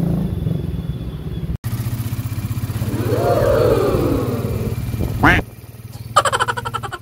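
Small motor-vehicle engine running, heard from inside the passenger cab, its note rising and then falling about halfway through. The sound changes abruptly twice, dropping quieter for the last second or so.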